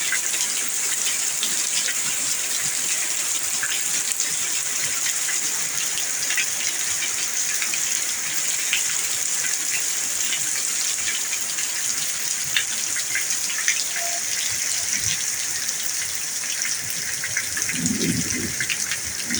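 Heavy tropical downpour: a steady hiss of pouring rain, flecked with the patter of individual drops striking nearby surfaces.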